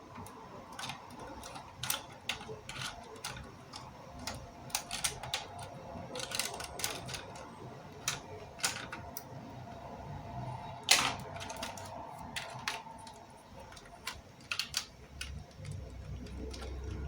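Irregular plastic clicks and rattles of LEGO Technic parts being handled, with one sharper, louder snap about eleven seconds in.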